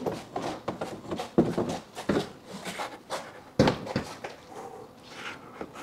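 A large 3D-printed plastic bumper being lifted and shifted against a car body: a run of knocks, taps and scraping, the loudest knocks about a second and a half and three and a half seconds in.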